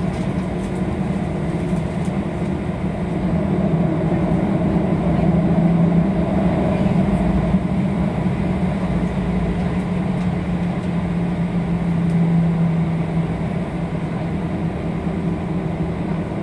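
Jet airliner cabin noise while taxiing: a steady engine hum and rush with a low drone, swelling slightly a couple of times as the engines work.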